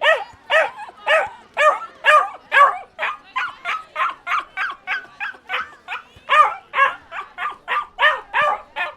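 Dog barking rapidly and continuously in short, high yapping barks, about three a second.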